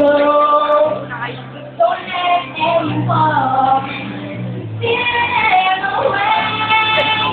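A woman singing a ballad solo over an instrumental backing track with a steady bass line. She sings short phrases, then holds a long note over the last couple of seconds.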